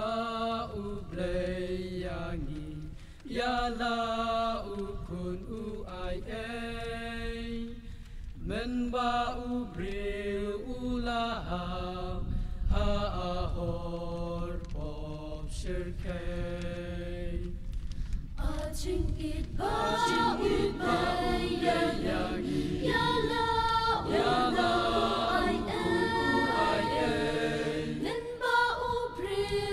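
Mixed choir of men and women singing a hymn in parts, unaccompanied. Phrases are broken by short breaks, and after one about two-thirds of the way through the singing swells fuller and louder.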